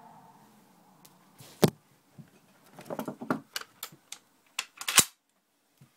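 Metallic clicks and knocks from handling an M1 Garand rifle's action while its locked-back bolt is worked closed. Two loud sharp snaps, about one and a half and five seconds in, stand out among scattered smaller clicks.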